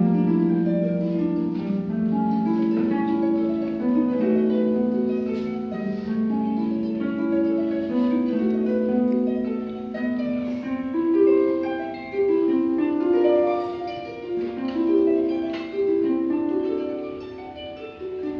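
Pedal harp played solo: a continuous flowing run of plucked notes ringing into one another, with occasional brighter accents.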